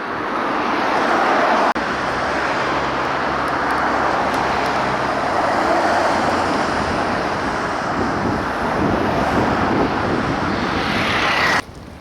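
Loud, steady roar of road traffic: motor vehicles passing close by, engine and tyre noise blended together. It cuts off abruptly near the end.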